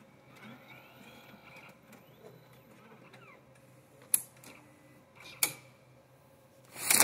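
Fuji FCR Carbon X computed-radiography cassette reader running as it scans an imaging plate: faint motor whirring with rising whines in the first few seconds, then two sharp clicks, about four and five and a half seconds in, and a loud burst of noise near the end.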